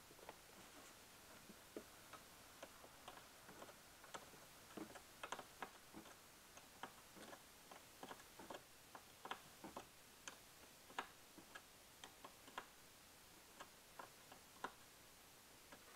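Faint, irregular metallic clicks and ticks of a hand wrench working a car battery's terminal clamp as the cable is reconnected.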